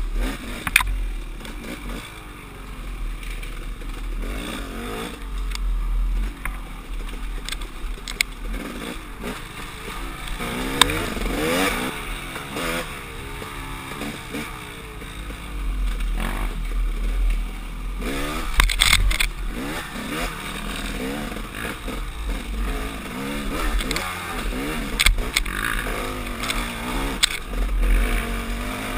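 KTM 300 XC-W two-stroke dirt bike engine revving up and falling back over and over as the throttle is worked on a woods trail, with a few sharp knocks.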